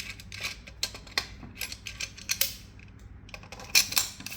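Irregular small metallic clicks and rattles of bicycle parts and a hand tool being handled as a part is fitted to the rear of the bike, with a louder cluster of clicks near the end.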